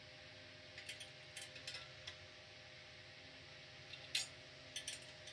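Light, scattered clicks and small metallic scrapes of a screwdriver being tried on a Torx screw of a Simplex horn/strobe alarm. A few clicks come in a cluster a second or two in, and the loudest single click comes about four seconds in, over faint room hum.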